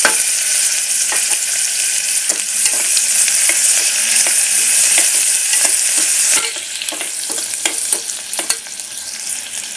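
Sliced onion sizzling in hot oil in an aluminium pressure cooker, stirred with a metal spoon that scrapes and taps against the pot. The sizzle is loud at first and dies down about six seconds in.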